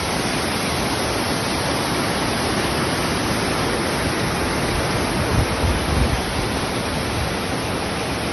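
Waterfall: a steady rush of falling water. A few brief low bumps sit over it a little past the middle.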